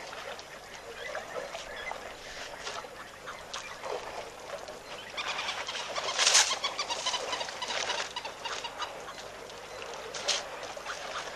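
Water and mud splashing and sloshing as a herd of African elephants wade and wallow. The splashes are irregular and grow into a louder flurry about halfway through, with another sharp splash near the end.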